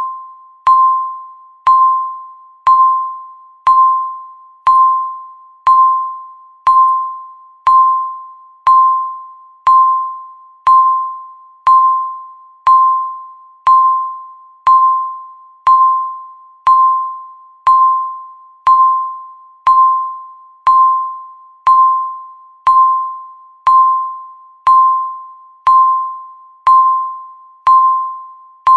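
Countdown timer beeping once a second. Each beep is a single high electronic tone that starts sharply and fades away before the next one.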